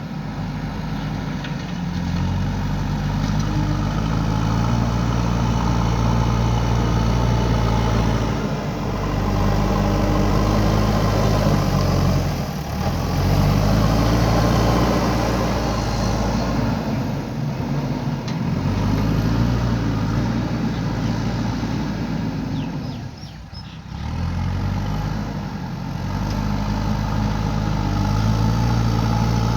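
JCB 3DX backhoe loader's diesel engine running under load, its speed stepping up and down as the machine works, with brief drops in engine note about a third and three quarters of the way through.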